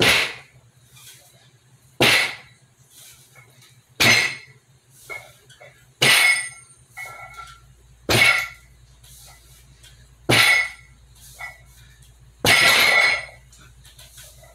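Barbell straight-leg deadlift reps: a loud, harsh burst about every two seconds, one for each rep, coming as the loaded bar reaches the bottom. The burst near the end lasts longer than the others.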